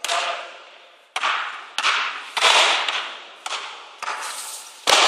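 Basketball dribbled on a wooden gym floor: about six or seven bounces at uneven spacing, each one echoing in the large hall, the loudest near the end.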